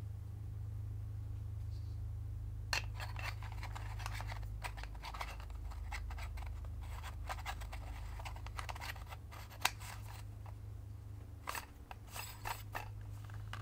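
A run of small clicks and scrapes as the square lens hood of a Leica Q3 is fitted and turned on its 28 mm lens, with a short pause near the two-thirds mark. A steady low hum runs underneath.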